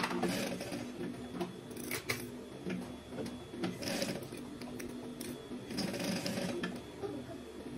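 Sewing machine stitching fabric pieces onto a paper backing, running in short stop-start runs as the work is fed under the needle.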